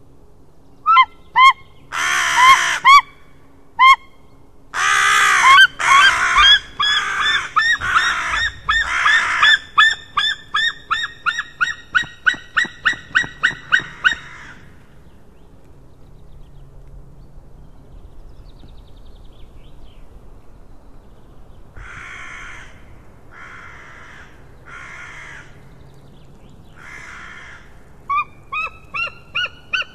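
White-tailed eagle calling: a long series of loud, short yelping notes that come faster and faster, then stop. Several fainter, rougher calls follow, and a new yelping series begins near the end.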